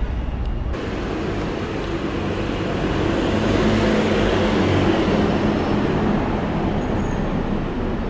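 Road traffic passing close: cars and a motor scooter go by, loudest about halfway through, while an Enviro 400H hybrid double-decker bus approaches. A steady hum holds under the traffic from about three seconds in.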